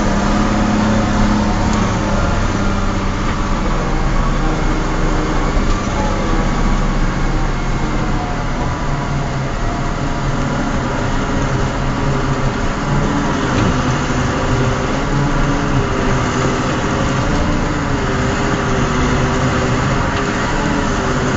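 A bus's diesel engine running steadily as the bus climbs a rough mountain road, heard from inside the cab. The engine note wavers slightly in pitch.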